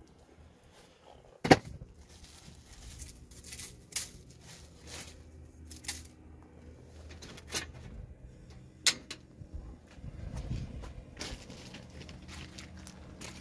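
Plastic bag and aluminium foil tray being handled while seasoning raw steaks: scattered crinkles and sharp clicks, the loudest about a second and a half in.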